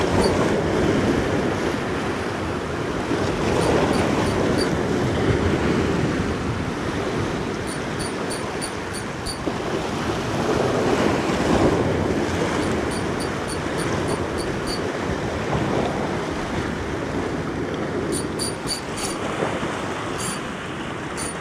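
Surf washing over the rocks, swelling and easing every few seconds. Several short runs of quick, high clicks, about four a second, from the small spinning reel being cranked as the jig is worked back.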